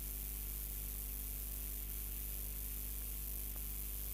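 Low, steady electrical hum with hiss: mains hum and noise in the audio line, with no game or crowd sounds.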